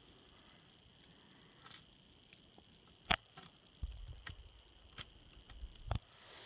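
Faint handling noise from working on a laptop's screen assembly with a small screwdriver. A few sharp light clicks and taps come in the second half, over a faint steady high whine.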